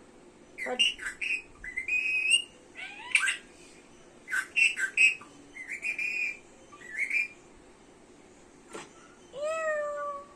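Pet parakeet chirping and whistling in a string of short calls, with a sharp click about nine seconds in and one longer falling call near the end.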